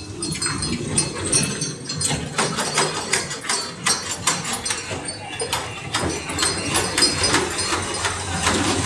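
Kiddie ride train running on its small circular rail track, with a quick, even clicking of about four clicks a second from about two seconds in, over a busy hubbub of voices.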